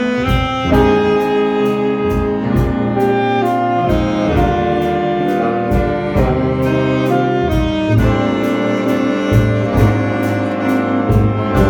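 Middle school jazz band playing a slow tune, with saxophones and brass holding chords over a steady cymbal beat and bass.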